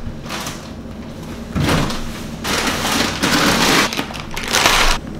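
Rustling and crinkling of plastic food packaging, in several noisy bursts that start about one and a half seconds in and stop abruptly near the end.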